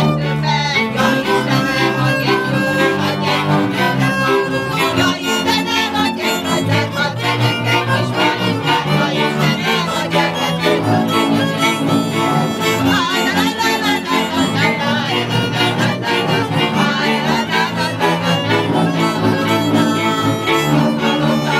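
A small string band of two violins and a bowed double bass playing a tune together.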